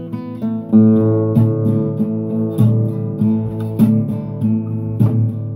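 Classical guitar strumming chords in a steady rhythm, a stroke a little more than every half second, with the chords changing along the way.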